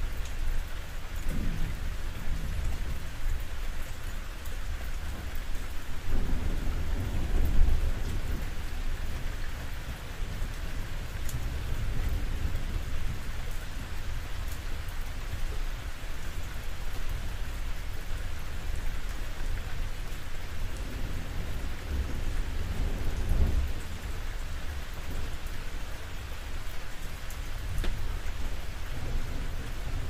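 Rain falling steadily on a roof, with low rumbling thunder that swells about seven seconds in and again after about twenty-two seconds.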